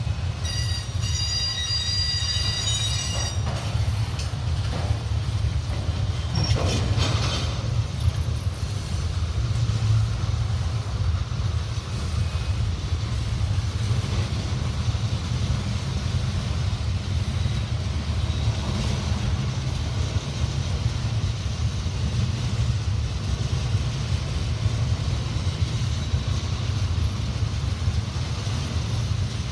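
Freight cars rolling past on the rails with a steady low rumble. A high-pitched wheel squeal rings for the first three seconds or so, then stops, and there are a few clunks about seven seconds in.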